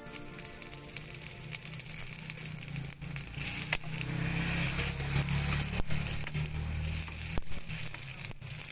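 Food sizzling and crackling in hot oil in a frying pan as it is sautéed, with a few sharp clicks scattered through.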